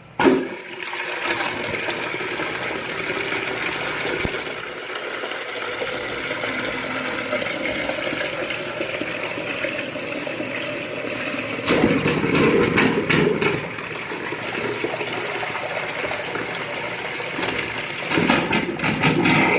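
Water rushing steadily out of a household water pipe being flushed to clear limescale, with two louder spluttering gushes of water and air, one about twelve seconds in and another near the end.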